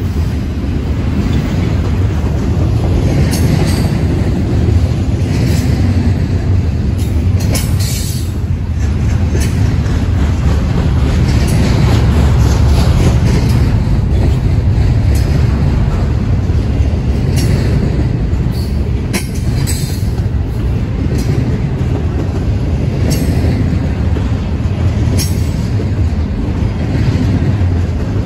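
Double-stack intermodal freight train's well cars rolling past close by: a steady, loud rumble of wheels on rail, with scattered sharp clicks now and then.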